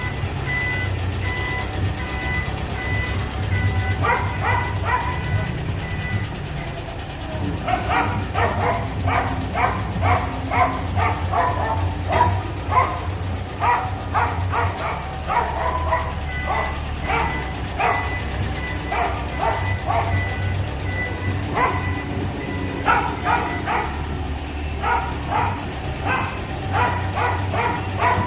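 A dog barking repeatedly in bursts over a steady low engine hum.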